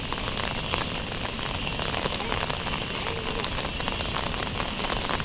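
Rain falling steadily: an even hiss full of fine ticks.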